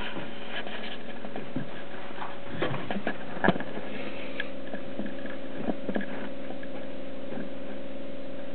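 Camera handling noise: scattered clicks and knocks, the loudest about three and a half seconds in, over a steady hum.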